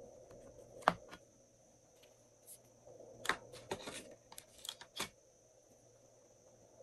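An eyeshadow palette being handled: one sharp click about a second in, then a run of short clicks and taps between about three and five seconds, over a faint steady hiss.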